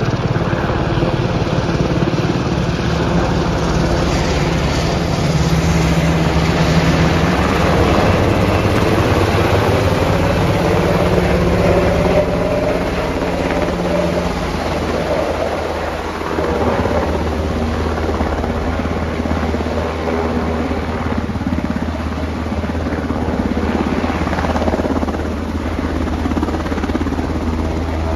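Black Hawk helicopter with a water bucket, its rotor and turbines running steadily as it flies and then hovers low over a river, the rotor downwash whipping up spray from the water. The pitch of the drone shifts about halfway through.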